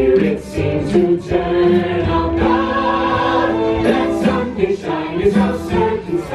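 A group of performers singing together in chorus to music, with one note held for over a second about two and a half seconds in.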